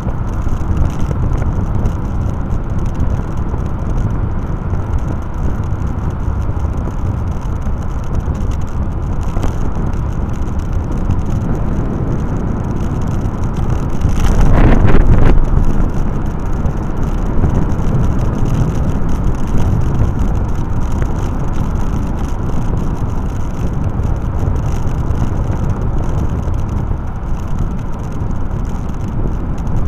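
Steady wind and road noise from a vehicle moving along the road, with a louder rush for a couple of seconds about halfway through.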